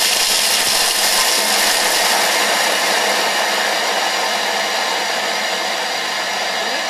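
Thermomix blending chocolate pieces at high speed to grind them down: a loud, steady whirring grind.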